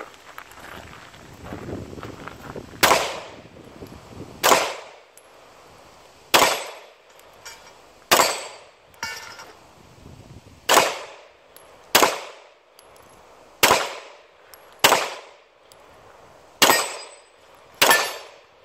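Pistol shots fired one at a time, ten sharp cracks spaced roughly one to two seconds apart, the first about three seconds in. Each shot is followed by a short echoing decay.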